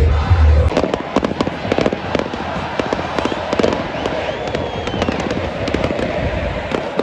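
A string of firecrackers going off, with many sharp pops and cracks in rapid succession.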